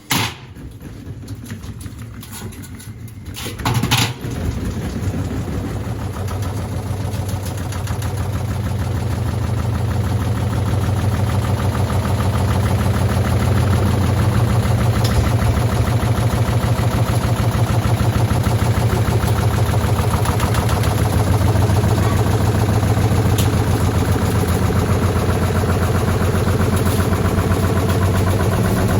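Indesit washing machine spinning up with a stone in the drum. The unbalanced load makes it knock and rattle hard, with one loud bang about four seconds in. The noise grows over the first ten seconds or so, then holds at a fast, steady clatter.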